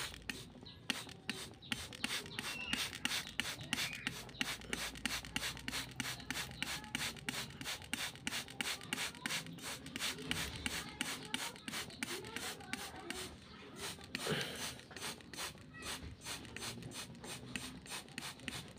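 Hand trigger spray bottle squeezed over and over, short hissing sprays of water mist at about three or four a second, with a brief break a little past the middle.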